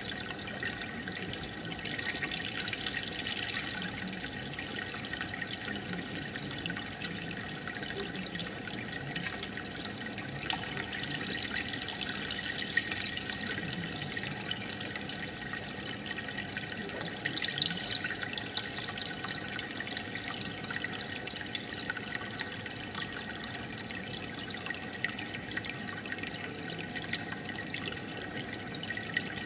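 Aquarium air bubbler and filter running: a steady bubbling and trickling of water, with many small pops of bursting bubbles.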